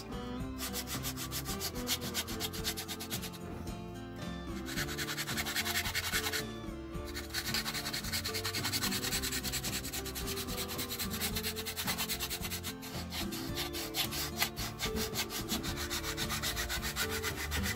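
Hand sanding with a sandpaper block: quick back-and-forth rasping strokes along the edges of two clamped knife handle scales, shaping them down to size. The strokes stop briefly three times in the first seven seconds, then run on steadily.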